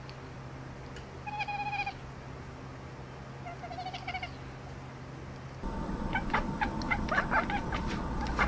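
Domestic cat meowing twice, each a drawn-out, wavering call. About two-thirds of the way through, a louder, rapid run of short high chirps takes over.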